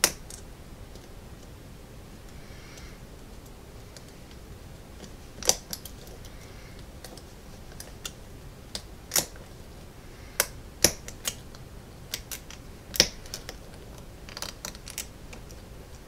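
Scattered, irregular small metallic clicks and ticks of a hook pick and tension wrench working the pin stack in the keyway of a solid brass American padlock under light tension, a few of them sharper and louder. The pins are not binding or setting.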